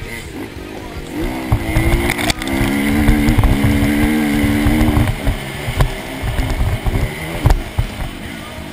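Dirt bike engine heard from a camera mounted on the bike, with wind buffeting the microphone. The revs climb about a second in, hold high under throttle for a few seconds, then drop off around the five-second mark.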